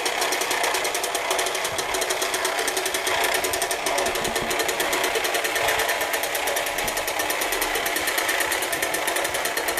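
REMCO Tiger Cat toy jeep's motor and gears running at its slow speed as it drives along, a steady, fast mechanical whirr.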